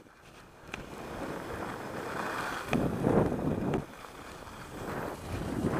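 Wind rushing over the microphone and skis hissing over packed snow during a downhill run, swelling louder in stretches about three seconds in and again near the end.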